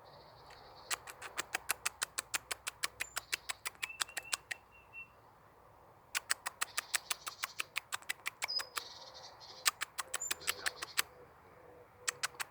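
Small birds at a bird house: three bouts of quick sharp ticks, about seven a second, with faint high chirps among them.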